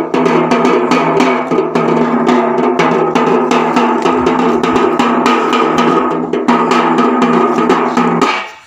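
Parai frame drum beaten with two sticks in rapid, even strokes, playing the saavu kuthu, the Tamil funeral beat. It stops shortly before the end.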